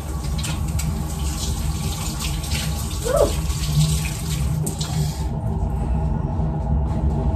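Water running from a tap while hands are washed under it, the splashing stopping suddenly about five seconds in as the tap is shut off.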